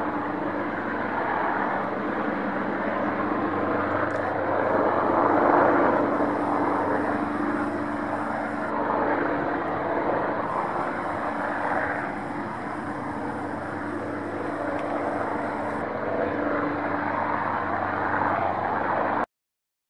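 HM Coastguard search-and-rescue helicopter flying overhead: a steady rotor and turbine drone that swells a little about five to six seconds in. It cuts off suddenly near the end.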